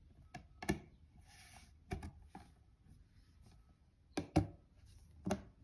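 Plastic lid being pressed down onto a plastic jelly mould, snapping into place with a series of sharp clicks: two about half a second in, one near two seconds, two close together just after four seconds, and one more near the end.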